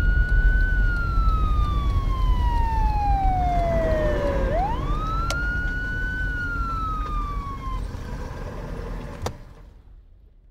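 Police car siren wailing in two slow cycles, each rising quickly and then falling away over about four seconds, over the low rumble of a car on the highway. The siren stops about eight seconds in, and the road rumble then fades out.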